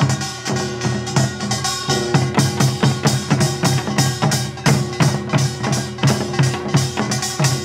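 Music with a fast, steady drum beat over sustained instrumental tones.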